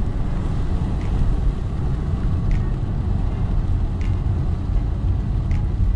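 Chrysler 300 cruising after a hard roll-on run, heard from inside the cabin: steady low engine and road rumble. A faint tick comes about every second and a half.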